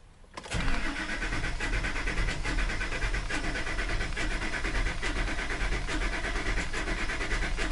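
Ford F-350 engine cranking on the starter with the throttle held wide open, starting about half a second in, with a steady, uneven beat. Number two cylinder has no compression, so the engine spins faster past it on each turn.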